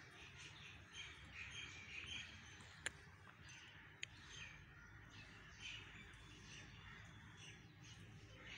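Faint birds chirping and calling, with two sharp clicks about three and four seconds in.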